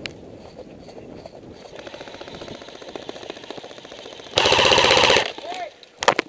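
Airsoft electric guns firing full-auto: a rapid, fainter rattle of fire runs through the middle, then a loud, close burst lasting about a second comes about four and a half seconds in, followed by two sharp cracks near the end.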